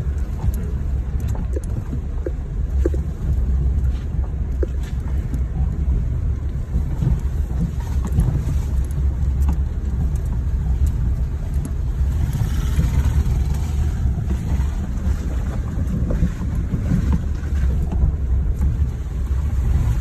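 Cabin sound of a four-wheel-drive pickup truck driving slowly over a bumpy, muddy dirt road: a steady low engine and road rumble with scattered knocks and rattles from the bumps, and a brief hiss of noise a little past halfway.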